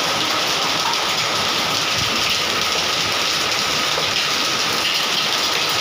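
Heavy rain mixed with hail pelting down on a tiled floor and surrounding surfaces, a dense, steady hiss.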